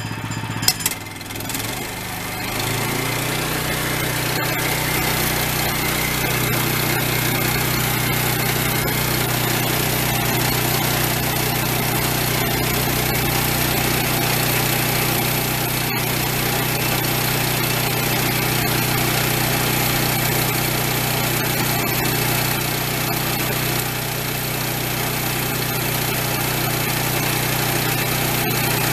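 Gasoline engine of a Woodland Mills HM122 portable band sawmill comes up to speed about two seconds in. It then runs steadily at working speed, driving the band wheels.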